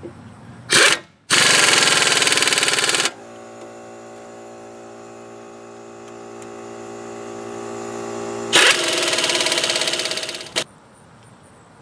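Pneumatic air ratchet running in rapid-clicking bursts as it tightens brake caliper bolts: a short blip about a second in, a two-second run, then another two-second run near the end with a final blip. Between the runs there is a steady hum that slowly grows louder.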